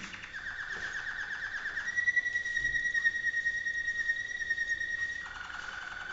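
Malinois (Waterslager) song canary singing: a fast trill, then one long steady whistled note held for about three seconds, then a drop to a lower note near the end.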